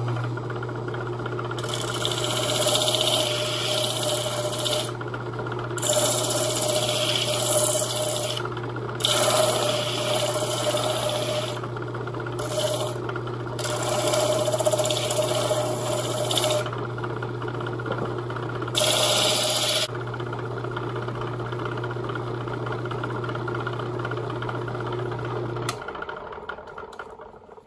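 Electric sanding machine's motor running with a steady low hum while a wooden buoy blank is pressed against the abrasive in six separate bursts of harsh sanding hiss, rounding off the blank's corners. The motor hum stops near the end.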